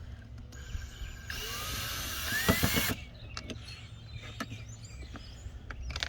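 Power drill-driver with an extension bit running for about a second and a half to back out a door-panel screw, its pitch rising as it spins, followed by a few sharp clicks.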